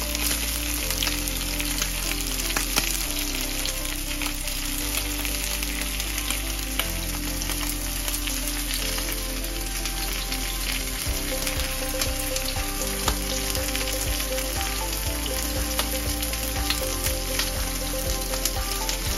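Antrikot (ribeye) steaks frying in olive oil in a non-stick pan over a gas flame: a steady sizzling hiss with many small crackles and pops.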